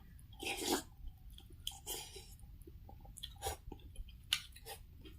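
A person chewing and eating pork noodle soup (thukpa), with wet mouth clicks and a longer noisy mouthful about half a second in.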